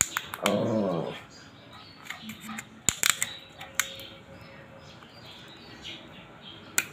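Clicks and taps of plastic and metal as a tyre sealant aerosol can's red nozzle and tube are handled and fitted to a scooter tyre valve. A short pitched sound falls in pitch about half a second in, and is the loudest thing heard.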